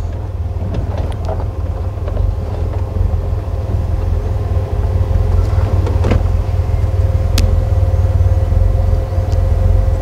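Safari vehicle's engine running, a steady low rumble with a faint steady hum above it. A single sharp click comes about seven seconds in.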